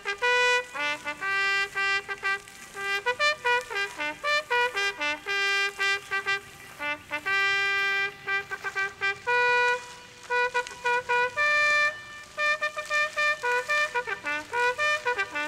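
Solo trumpet playing a melody, one line of short and held notes at changing pitches, during the salute to the raised flag.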